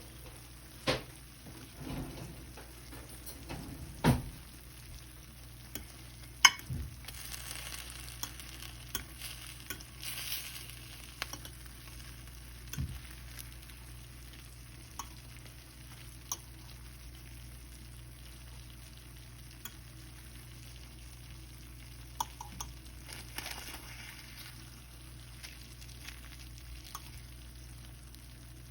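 Kitchen food-preparation sounds: scattered knocks and clicks of utensils and dishes, with two stretches of soft hissing, over a steady low hum.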